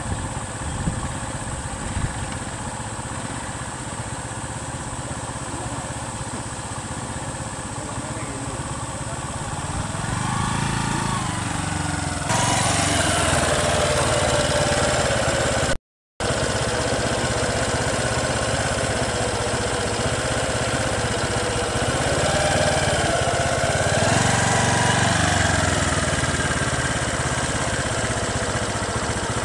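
Motor-vehicle engine idling steadily, rising in pitch and falling back twice as the vehicles creep forward. The sound cuts out for about half a second midway.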